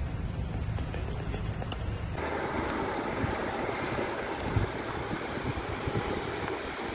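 Wind rushing over the microphone while moving along a road. It starts as a low rumble, and about two seconds in it changes abruptly to a broader, fuller rush.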